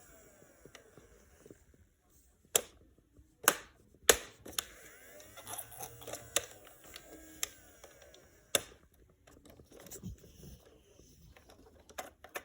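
Nerf Ultra Strife blaster being handled and worked: a scatter of sharp plastic clicks, with a faint whir that rises and falls in the middle.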